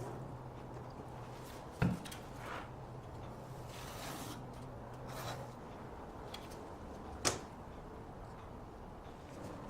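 Two sharp knocks about five seconds apart, with light rubbing and scraping between them, over a low steady hum that stops a little past halfway.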